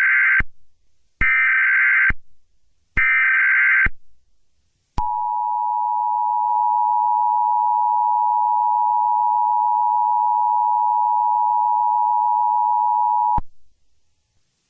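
Emergency Alert System tones: three short bursts of the SAME digital header's data tones, then the EAS two-tone attention signal, a steady tone held about eight seconds before it cuts off sharply.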